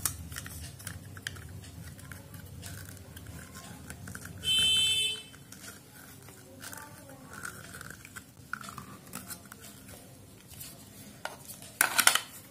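Hands fitting the plastic impeller cover and casing back onto an air cooler submersible water pump: faint handling rattles, then a few sharp plastic clicks near the end. About four and a half seconds in, a loud high-pitched beep lasts just under a second.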